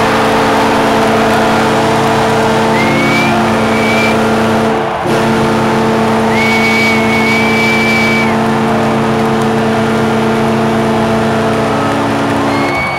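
Arena goal horn blowing in long held blasts of several tones together over crowd noise, pausing briefly about five seconds in and again near the end: the horn that signals a home-team goal. A few high whistles sound over it.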